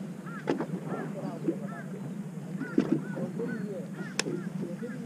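Many short bird calls, each rising and falling, overlapping one another over the steady low hum of the fishing boat's engine, with three sharp clicks.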